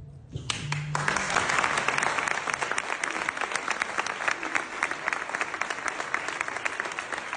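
Large audience applauding: clapping breaks out about half a second in and quickly becomes dense and sustained.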